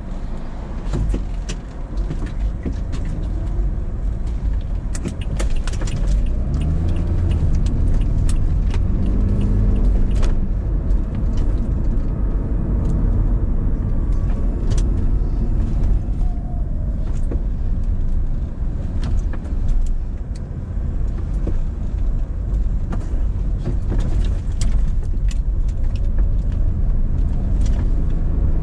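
Car driving on city roads: a steady low engine and road rumble, with the engine note climbing and falling a few times about a quarter of the way in as it picks up speed. Frequent small clicks and rattles run over the rumble.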